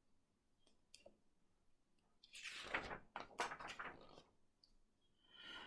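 Faint papery rustling and handling noises of a picture book being turned to the next page, for about a second and a half, a couple of seconds in; otherwise near silence.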